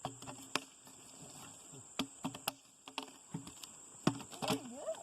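Steady high-pitched insect drone, like crickets, with scattered sharp knocks and clicks. A short wavering pitched sound comes near the end.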